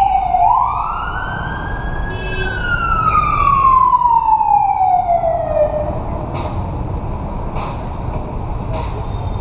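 A fire engine's wailing siren sweeps up in pitch for about a second and a half, then falls slowly over about four seconds before it fades. Over a steady traffic rumble, from about six seconds in, a short hiss repeats roughly once a second.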